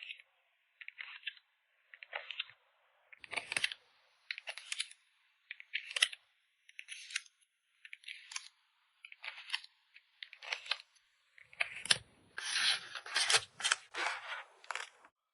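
Photocard packing materials such as card sleeves and paper being handled: short, crisp rustles about once a second, becoming a busier, almost continuous rustling in the last few seconds.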